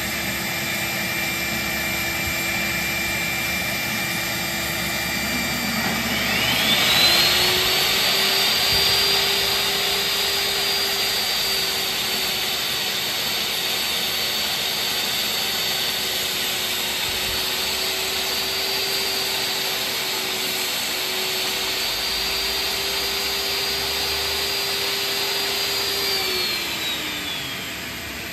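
Shop vacuum running steadily for dust collection. About six seconds in, a table saw motor starts and whines up to speed, crosscuts a board across the grain with a fine-tooth blade, then spins down near the end while the vacuum keeps running.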